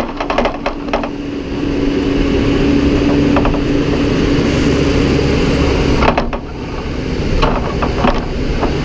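A shovel scooping and scraping cattle feed: a quick run of knocks, then a long steady scrape, with a few more knocks near the end. A steady low hum runs underneath.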